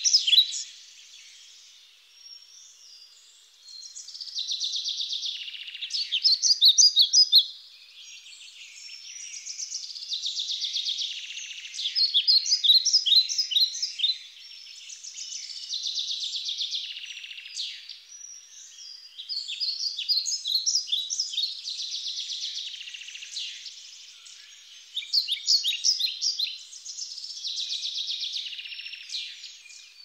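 Small songbirds calling: groups of quick, high chips alternating with buzzy chatter, repeating every few seconds.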